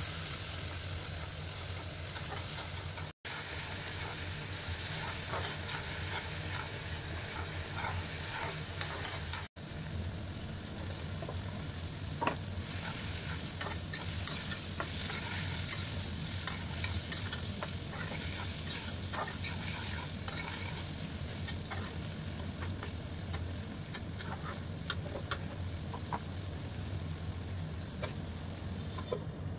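A flat metal spatula stirs and scrapes around a wok as sliced bitter gourd and potato fry in sizzling oil with onions and spices, with many short scrapes over a steady sizzle. A steady low hum runs underneath, and the sound drops out briefly twice, about 3 and 9 seconds in.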